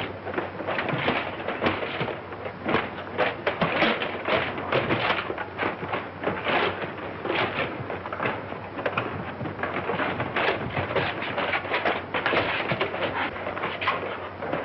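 Clanking and knocking of metal robot suits as the robots walk: a dense, irregular clatter of several knocks a second.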